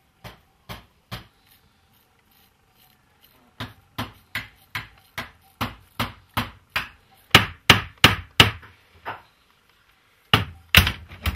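Hammer blows on a small piece of metal against a stone. Three taps come first, then after a pause a steady run of about two and a half sharp knocks a second that grows louder. A quick flurry of heavier blows follows near the end.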